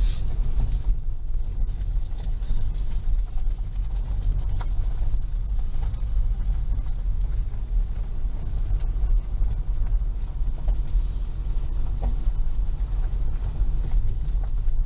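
Car driving slowly along a rough gravel lane, heard from inside the cabin: a steady low rumble from the tyres and running gear.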